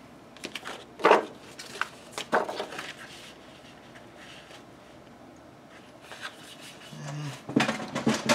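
Paper and craft materials being handled on a table: scattered rustles and light taps in the first few seconds, a quiet stretch, then more rustling near the end.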